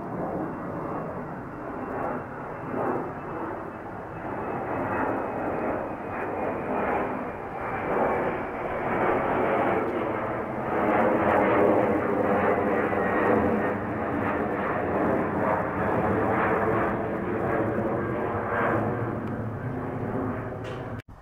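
Twin-engine jet airliner passing overhead: a jet engine roar that grows louder toward the middle of the pass, with a faint high whine that sinks slightly in pitch over the first few seconds. The sound cuts off abruptly near the end.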